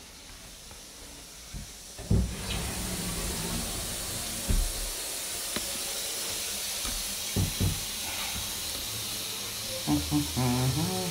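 Water running steadily from a bathroom shower or tap, an even hiss that starts with a knock about two seconds in, with a few light knocks along the way. Near the end a short wavering voice-like sound comes in over the water.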